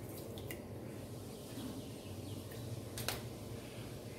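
Quiet room tone: a low steady hum with a few light clicks, the sharpest about three seconds in.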